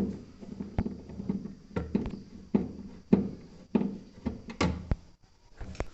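Irregular clicks and knocks of a screwdriver and hands fitting screws into a refrigerator's thermostat box cover, about two sharp taps a second.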